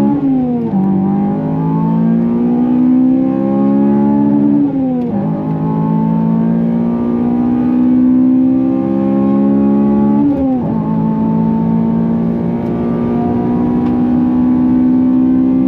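Honda Civic Type R FN2's K20 inline-four engine pulling hard under full acceleration, its pitch climbing steadily through each gear and dropping sharply at three upshifts: about half a second in, about five seconds in and about ten and a half seconds in.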